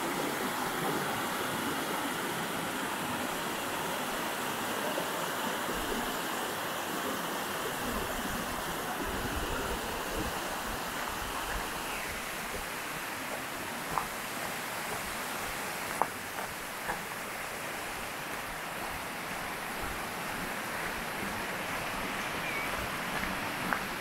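Small forest stream rushing and splashing over rocks, a steady rush of water that eases a little about halfway through. A few sharp clicks stand out in the second half.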